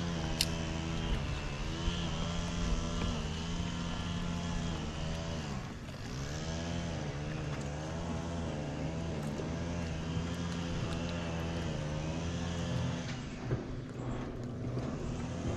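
A motorboat engine running steadily on the lake, a continuous drone whose tone wavers and shifts from about six seconds in as the boat moves.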